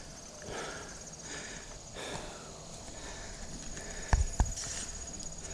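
Handling noise from a camera being adjusted by hand: soft rustling and scraping, then two sharp knocks close together about four seconds in.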